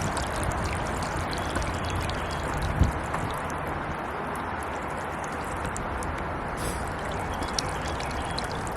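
Steady splashing and pattering of a solar fountain pump's high bullet-nozzle water jet falling back down, with water spilling out of the bird bath. A brief low thump about three seconds in.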